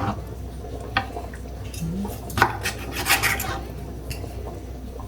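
Metal pots and utensils clinking and clattering: a few separate sharp knocks, then a quick run of clattering about three seconds in, over a steady low hum.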